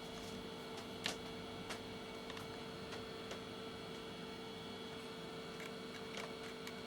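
Steady electrical hum from a cheap projector's circuit board just after 12 V power is connected, with a few faint ticks in the first couple of seconds. The projector gives this hum and a flashing light instead of starting up, a fault the repairer puts down to a dead chip.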